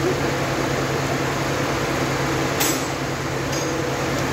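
Steady mechanical hum, with one sharp click about two and a half seconds in.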